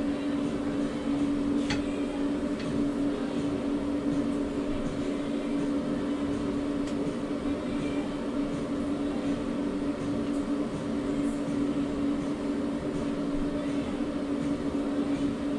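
Blower fan of a homemade HEPA extra-oral dental suction unit running steadily, a constant hum over the rush of air drawn through its hood and flex hose.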